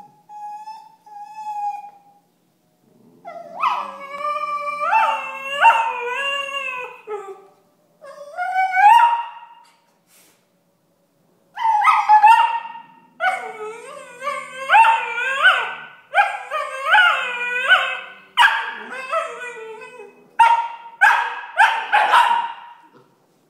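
Young Tibetan terrier puppy whining and howling in long, wavering cries that rise and fall in pitch, in several bouts, a puppy complaining. Near the end the cries break into short, sharp yips.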